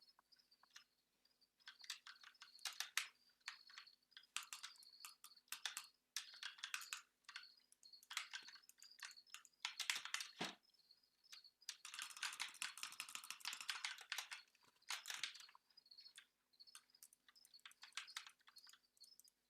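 Computer keyboard being typed on: irregular bursts of quick key clicks, with a dense run of rapid typing about twelve seconds in.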